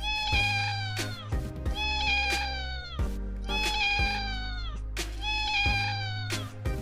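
Domestic cat meowing repeatedly, drawn-out meows that fall in pitch at the end, over background music.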